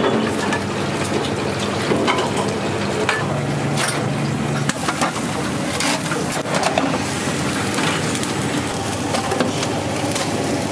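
Commercial kitchen at work: a steady rushing noise of cooking, with scattered clinks and knocks of pans and utensils.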